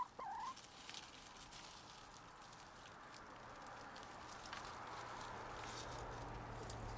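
Hens scratching and pecking in a compost pile of leaves and food scraps: faint rustling and light pattering, with a soft cluck right at the start. A low steady hum comes in about halfway through.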